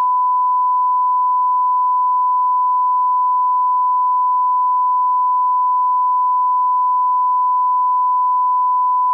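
Continuous 1 kHz sine-wave test tone: a single steady pitch, the reference tone laid at the head of a tape for audio line-up, cutting off suddenly.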